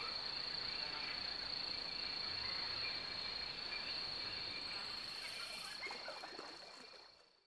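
Steady insect chorus: one unbroken high-pitched note over a soft outdoor hiss, fading away near the end into silence.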